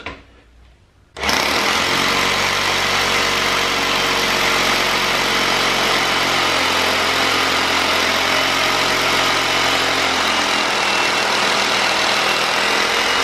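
SDS rotary hammer drill boring a 6 mm hole into a concrete floor, starting about a second in and then running steadily, with slow bit rotation and the piston hammer action pounding the bit.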